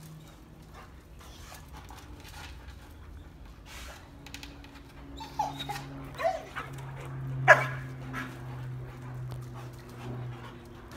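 Liver-spotted Dalmatians whimpering and yipping, with one loud sharp bark about seven and a half seconds in: excited dogs worked up over a squirrel they cannot reach.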